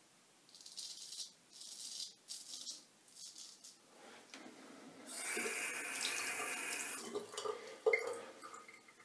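Straight razor scraping over lathered stubble in several short strokes. About five seconds in, a tap runs for roughly two seconds, and near the end come a few clicks and one sharp knock.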